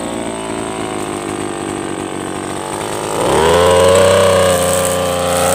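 Mitsubishi TB43 two-stroke engine of a backpack brush cutter idling, then revved up about three seconds in and held at a higher, steady speed.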